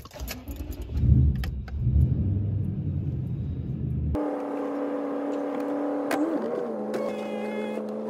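Toyota Tundra's engine running, heard from inside the cab: a low, uneven rumble for about four seconds, then an abrupt change to a steady humming drone as the truck drives.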